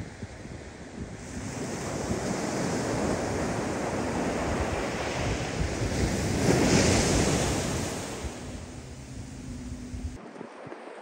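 Ocean waves breaking and washing up the beach, with wind rumbling on the microphone. The surf builds to its loudest crash about six to seven seconds in, then eases off, and the low wind rumble cuts out abruptly near the end.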